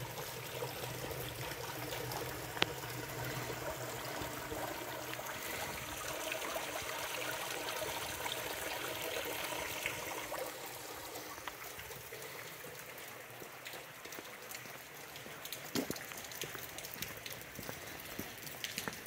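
Steady rain on a wet street, with water running and trickling. After about ten seconds the running sound thins, and separate drops and taps stand out more towards the end.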